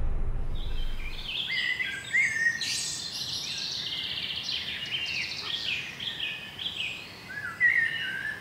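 Songbirds singing: a dense run of overlapping chirps, whistles and trills. A low rumble fades out in the first second.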